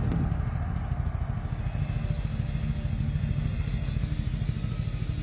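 Live rock band between sung lines, dominated by a loud, rapidly pulsing low rumble of drums and bass.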